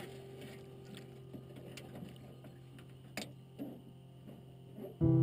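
Faint clicks and knocks of gear being handled in a canoe, with the quiet wash of the boat on calm water, over a soft held music tone. The soundtrack music comes in loudly just before the end.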